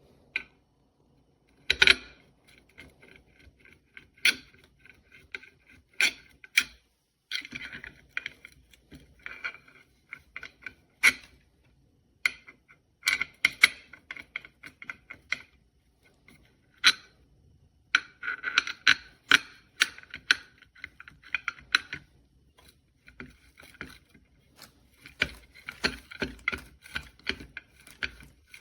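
Small metal parts being handled: irregular sharp clicks and clinks, some ringing briefly, coming in clusters with short pauses.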